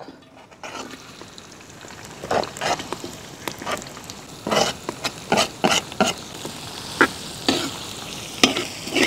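Sliced onions sizzling as they drop into hot oil in a large metal uruli, the start of sautéing them. Through the steady sizzle come repeated sharp scrapes and clicks of a metal slotted spoon pushing the onions off a wooden board and spreading them in the pan.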